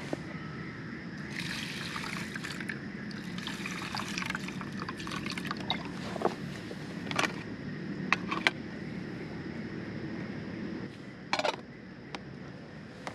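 Water poured from a cup into an aluminium mess tin of rice, trickling and splashing for a few seconds. Light metal clicks follow, and near the end a knock as the lid goes onto the tin.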